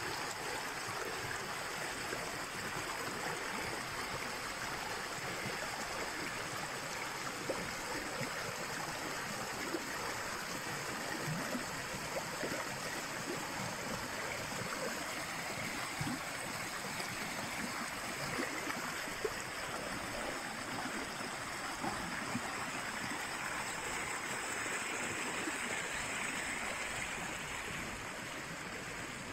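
Shallow mountain brook running over rocks and stones, a steady babbling rush of water that eases slightly near the end.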